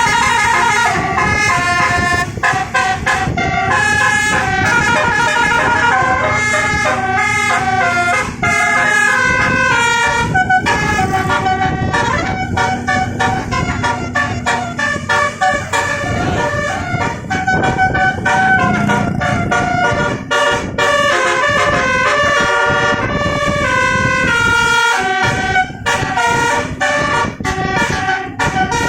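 Basuri telolet bus air horn playing a fast melody, its tones jumping quickly from note to note, over the steady low running of the bus engine.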